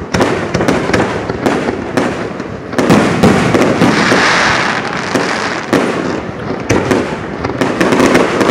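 Aerial fireworks display: many sharp bangs from bursting shells in quick succession, with a dense, sustained rush of noise for a couple of seconds around the middle.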